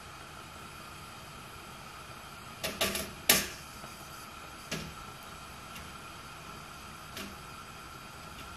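Taro corms dropped by hand into a copper pot on a gas stove: a quick cluster of knocks about three seconds in, then two more single knocks, over a steady faint hiss.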